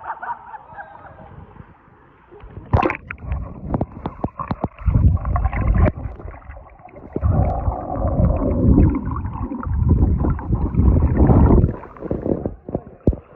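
Muffled underwater gurgling and churning of pool water around a submerged microphone, starting about three seconds in, heaviest in the middle and dropping away about a second before the end as it surfaces.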